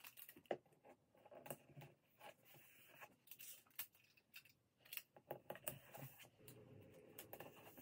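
Faint handling of large paper sheets and tape: scattered light clicks and rustles, with a soft rubbing near the end as a hand smooths the paper flat.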